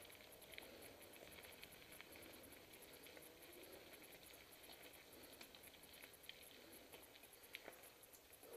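Faint crunching and scattered clicks of a mountain bike rolling over a dirt trail strewn with leaves and grit, heard very low.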